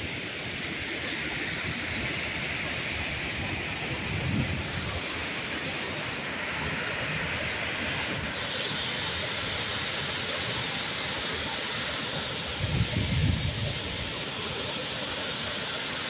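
Waterfall rushing in a steady, even hiss that grows brighter about halfway through. Wind buffets the microphone in two brief low rumbles, about four seconds in and again near the end.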